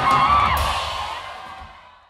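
Music with whoops and shouts, fading out steadily to near silence.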